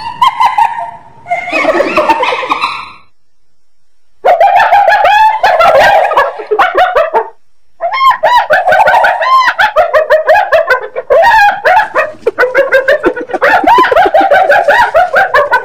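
Spotted hyena giggling, the 'laughing' call: long runs of short, high calls rising and falling in quick succession, with a pause about three seconds in and a brief break after about seven seconds.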